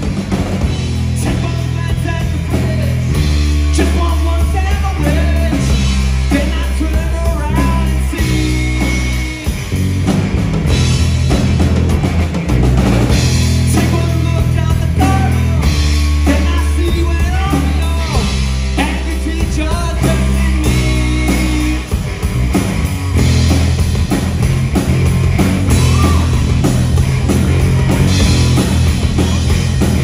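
Live rock band playing: drum kit and heavy sustained bass notes under guitar, with singing.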